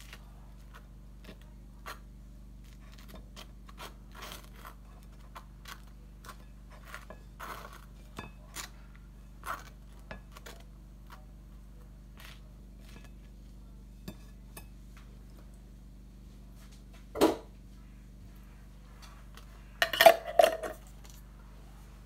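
A knife scraping chocolate spread across toast on a ceramic plate: many small scrapes and clicks of the blade against the toast and plate, over a faint steady hum. A louder knock comes about 17 seconds in, and a brief clatter of clinks about 20 seconds in.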